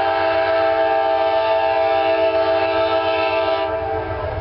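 Amtrak P42DC locomotive's air horn sounding one long, steady chord of several notes, cutting off near the end, over a low rumble.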